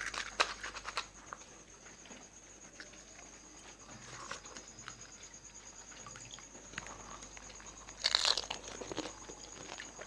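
Crisp fuchka (pani puri) shells cracking and crunching as they are broken and bitten, with chewing between, and a louder burst of crunching about eight seconds in.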